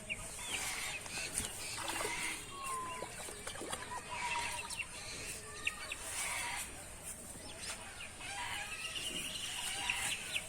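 Short bird calls, a few scattered chirps and clucks, over a steady high hiss.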